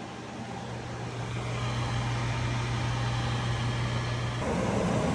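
Over-the-range microwave's exhaust vent fan running: a steady low hum over rushing air that builds up over the first couple of seconds. About four and a half seconds in the hum drops out and the air noise gets fuller and a little louder, as when the fan changes speed.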